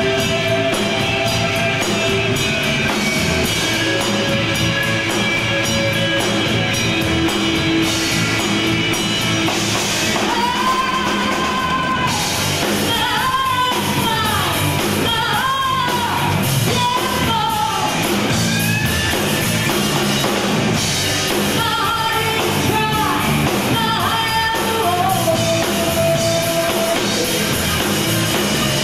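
Live rock band playing: drum kit with electric and acoustic guitars. The first ten seconds or so are instrumental, then a lead vocal comes in and sings over the band.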